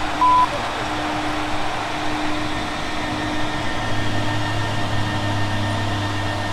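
Gas-station coin-operated air compressor running with a steady hum while a tyre is filled from its hose; a deeper hum comes in about four seconds in. A single short beep sounds just after the start.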